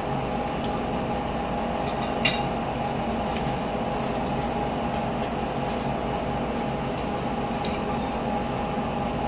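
Metal forks clicking and clinking against plates as people eat, scattered light taps with a sharper one about two seconds in, over a steady background hum.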